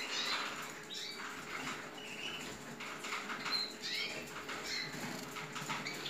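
Canaries moving about in a wire cage: wings fluttering and light ticks and taps, with short high chirps now and then.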